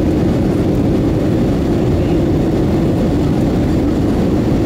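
Steady cabin noise of a jet airliner on approach, heard inside the cabin beside the wing-mounted turbofan engine: a loud, even drone of engine and rushing air, heaviest in the low range.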